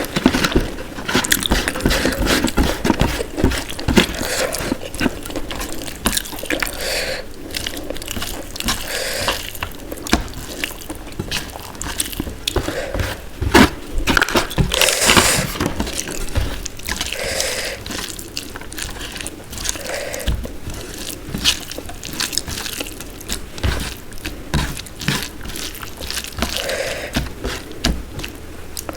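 Close-up eating sounds of dal and rice with mashed potato: wet chewing and lip smacking, many small irregular clicks and squelches.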